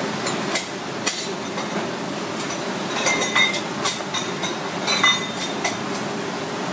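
Kitchen clatter: a handful of sharp clinks and knocks of utensils and dishes, a couple of them ringing briefly, over a steady background hum.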